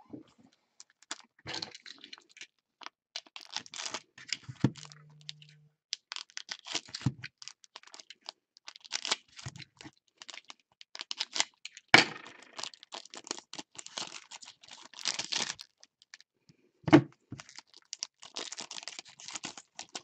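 Trading card pack wrappers being torn open and crinkled by gloved hands, with cards and packs shuffled on a table. Two sharp snaps stand out, one about halfway through and one about three-quarters through.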